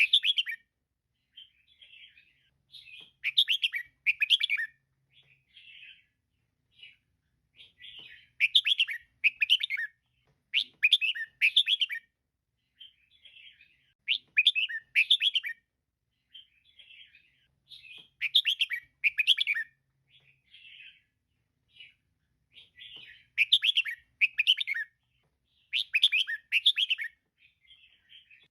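Female red-whiskered bulbul calling: loud clusters of quick chirps every few seconds, with softer twittering notes between them.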